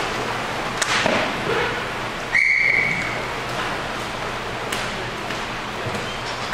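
A referee's whistle gives one short blast of a bit under a second, about two seconds in, signalling a stop in play. Scattered clicks and knocks from the rink sound around it.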